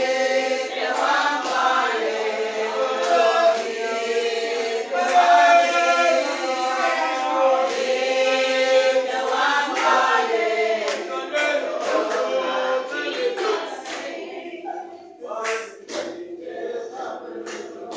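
A church congregation singing a spiritual together, many voices at once. The singing trails off about fourteen seconds in, and a few sharp knocks follow.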